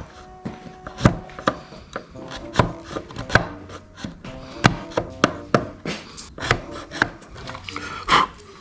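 A series of sharp, irregular knocks and clicks, roughly one or two a second, over faint background music.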